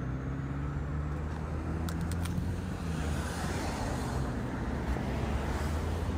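Steady low rumble of a motor vehicle engine with road traffic noise, and a few brief clicks about two seconds in.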